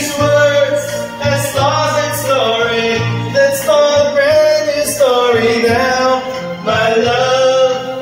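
Karaoke: a man singing into a handheld microphone over a recorded backing track, holding long notes that slide between pitches.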